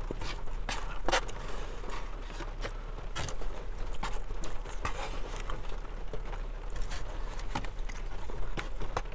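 Close-miked eating sounds: chewing, and a plastic spoon scraping and tapping a foam takeout container, heard as scattered sharp clicks and scrapes at irregular intervals.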